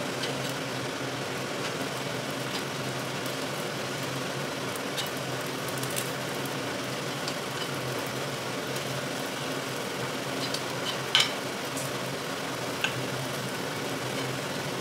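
Paddu dumplings sizzling in oil in a cast-iron paddu pan, over a steady low hum, with a steel spoon ticking against the pan as they are turned and one sharper clink about eleven seconds in.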